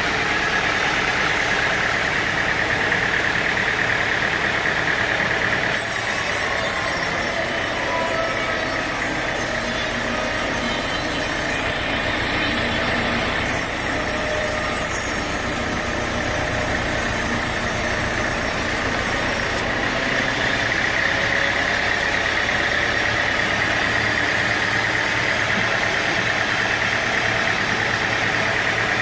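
Sawmill machinery running steadily, an engine with the saw going. An extra high hiss comes in about six seconds in and stops about twenty seconds in.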